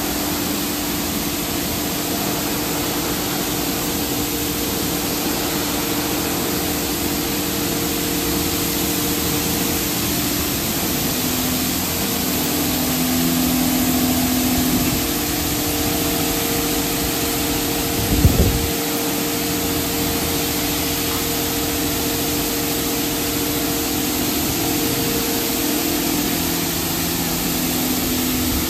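NCS/Ryko Radius touchless car wash's spray arm blasting high-pressure water over a car during the top wash, a steady hiss of spray over a steady pump hum that shifts in pitch now and then. A brief thump about two-thirds of the way through.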